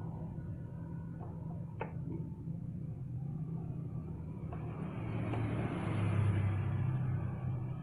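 A vehicle engine running steadily at a low hum, with a sharp click about two seconds in. Around five to seven seconds in, a louder rushing swell rises and falls away.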